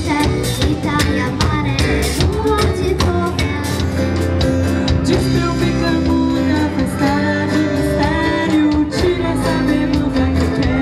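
Live acoustic band playing a song: a female voice singing over strummed acoustic guitars, bass and a drum kit keeping a steady beat.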